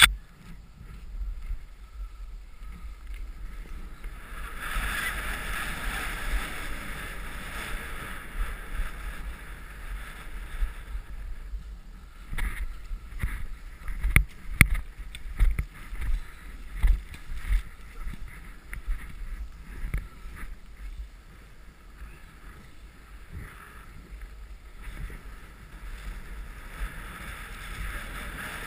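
Skis scraping and hissing over packed snow at speed, with a steady low wind rumble on a GoPro HD camera. The snow noise swells for long stretches, and a run of knocks and thumps comes around the middle as the skis cross tracked-up, lumpy snow.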